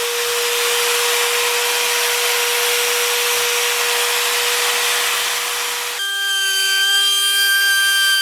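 A workshop tool running steadily: a loud hiss with a steady whine in it. The whine changes pitch abruptly about six seconds in.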